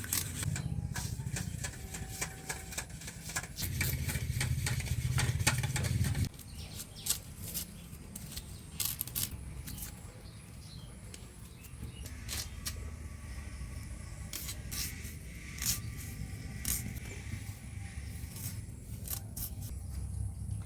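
Kitchen handling sounds: scattered sharp clicks and light scrapes of utensils and ingredients being worked, over a low rumble that is strongest for the first six seconds and then drops away.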